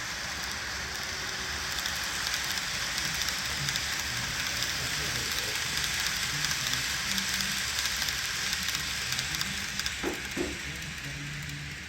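N gauge model trains running on the layout track: a steady, crackling hiss of small wheels rolling and clicking over the rails. Two short sharp sounds come near the end.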